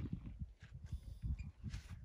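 Footsteps of a person walking, heard as a run of irregular low thuds from the carried camera, with a few brief scuffs, one about half a second in and more near the end.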